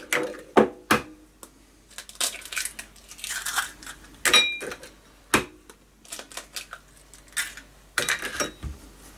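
Raw eggs being cracked open by hand: a series of sharp taps and the crackle of breaking eggshell, spread out over several seconds.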